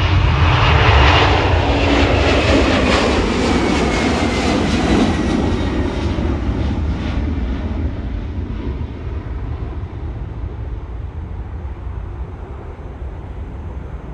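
Jet airliner's engines at takeoff thrust as it rolls or climbs past, loudest about a second in, with a thin whine that drops in pitch as it goes by, then slowly fading.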